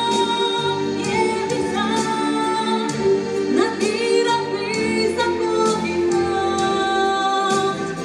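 A woman singing solo into a handheld microphone over instrumental accompaniment with bass and sustained chords.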